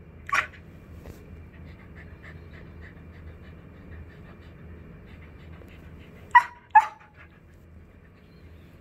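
White spitz-type puppy panting softly, with a short breathy puff just after the start. Two short high yips come in quick succession about two-thirds of the way through.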